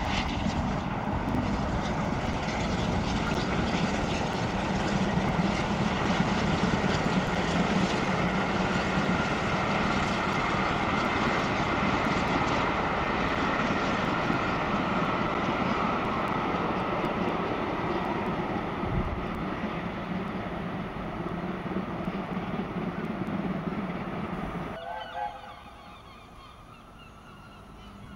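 Steam locomotive working a train past, a steady loud rumble and rush of sound with gulls calling over it; the sound drops away sharply about 25 seconds in.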